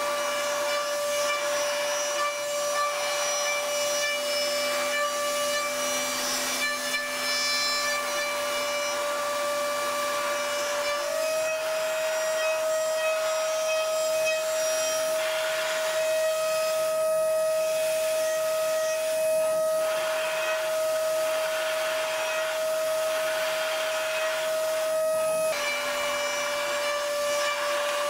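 Datron high-speed CNC milling machine cutting an aluminium block with a small end mill: a steady high spindle whine over a hiss of cutting. The whine steps up slightly in pitch about eleven seconds in and drops back a few seconds before the end.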